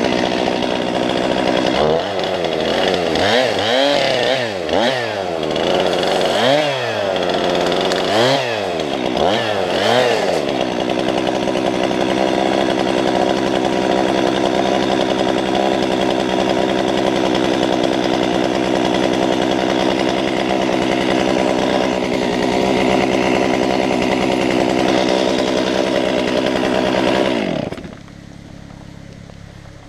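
Stihl MS 362 two-stroke chainsaw cutting a fallen tree. It is revved up and down in quick bursts about six times through the first ten seconds, then held at steady full throttle. Near the end it is shut off and its pitch falls away.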